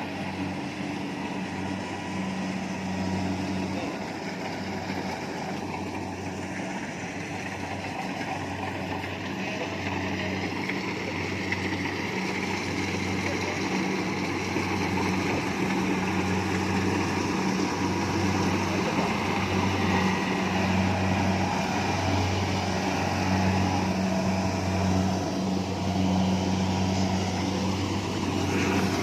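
Kubota rice combine harvester running steadily: an even engine hum with a broad mechanical rush of the working machinery over it, growing gradually louder through the first two-thirds.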